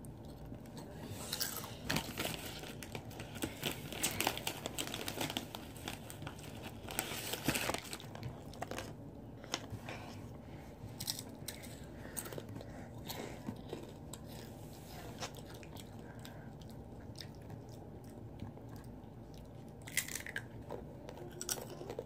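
Someone biting and chewing a crunchy snack close to the microphone: irregular crunches, busiest a few seconds in and again near the end.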